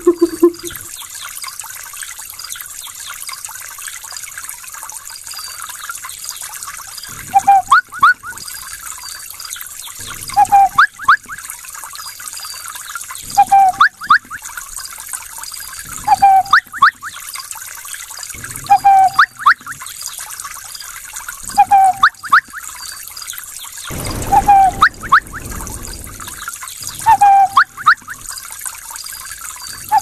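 A person imitating a Tanzanian bird's call. The call repeats about every three seconds from about seven seconds in, each time a short low note followed by a few quick rising whistles. A steady trickle of running water plays underneath throughout.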